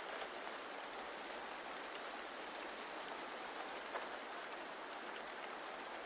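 Steady rain falling on leaves: an even hiss with a few sharper drop ticks, one at about four seconds in.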